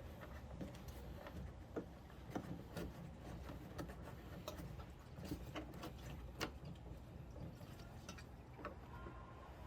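Irregular light clicks and taps, a few to several a second and uneven in spacing, over a faint steady low hum.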